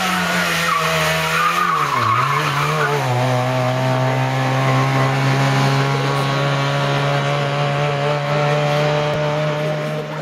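Trabant rally car's two-stroke twin-cylinder engine running hard at high revs, with tyre squeal as it slides through the bend. About two seconds in the revs dip briefly for a gear change, then hold a steady, high note as the car accelerates away.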